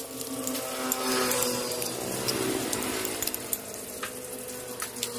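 Metal spoon stirring and clicking against a bowl as a chopped shallot and chili mixture is mixed by hand. Behind it, a passing motor vehicle's engine hums, slowly falling in pitch, and is the loudest sound from about a second in.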